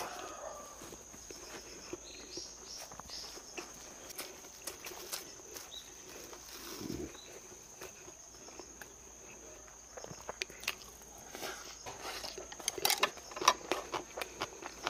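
Eating sounds: chewing and scattered light clicks of utensils and dishes, busier near the end, over the steady high chirring of crickets.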